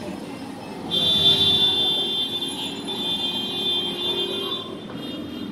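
A vehicle horn held for about four seconds as one steady blare, starting about a second in, over a steady rumble of street traffic.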